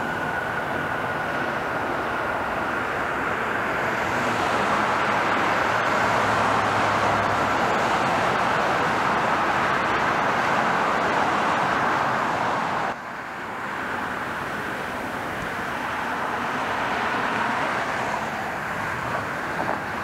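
Jet engines of a Boeing 767 rolling out after landing: a high whine that fades and a broad jet roar that swells for several seconds. Then a sudden cut about 13 seconds in to quieter, steady jet noise.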